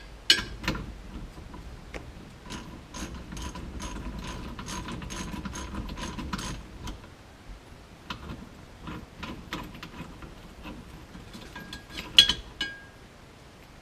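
Socket ratchet clicking rapidly as the steering wheel's center nut is worked loose on a 1969 Oldsmobile Cutlass 442 steering column. The clicking thins out after about seven seconds into scattered clicks, with a couple of sharp metal clanks near the end.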